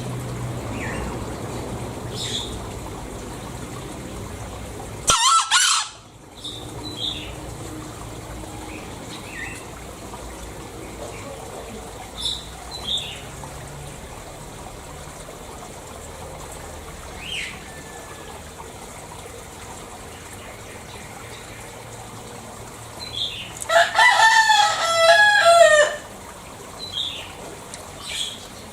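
Green junglefowl calling twice: a short, loud, high call about five seconds in and a longer, broken call near the end. Small birds chirp briefly in between.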